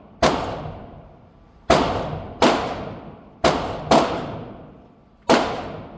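Six gunshots fired at a target at uneven intervals, each followed by a long fading echo.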